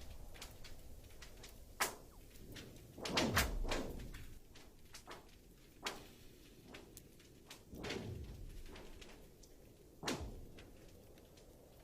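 Thick lake ice cracking: about five sharp cracks a couple of seconds apart, with fainter ticks between them, the loudest about three seconds in. Several ring out with a falling, zapping tone as the crack travels through the ice sheet.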